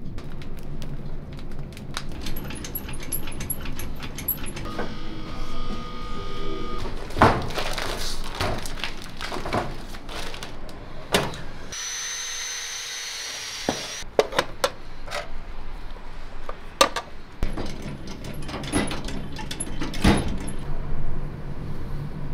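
Cordless drill whirring for about two seconds as it bores into raw lamb, amid a run of sharp knocks and clatter from handling split logs and gear around the pit oven.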